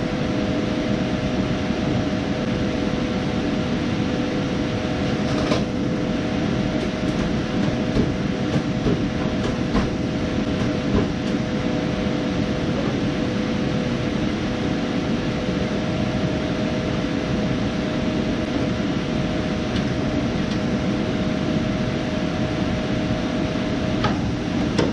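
A steady machine drone with a constant two-tone hum, with a few faint clicks of tools about five and a half seconds in and near the end.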